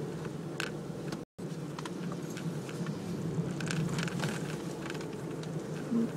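Steady engine and road noise heard from inside the cabin of a moving Suzuki Celerio, with faint scattered ticks and rattles. The sound drops out completely for an instant about a second in.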